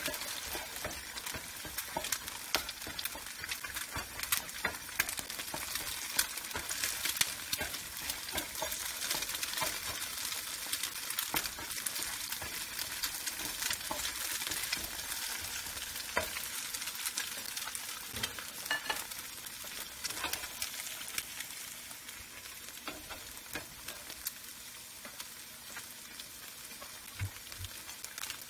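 Eggs sizzling and crackling in a hot nonstick frying pan while a spatula stirs and scrapes them around. The sizzle is a little quieter over the last several seconds.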